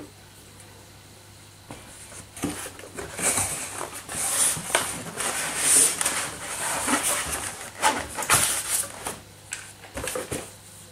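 Handling noise from a shotgun being shifted in its styrofoam packing insert: irregular scraping and rustling of foam and cardboard, starting about two seconds in, with a few light knocks.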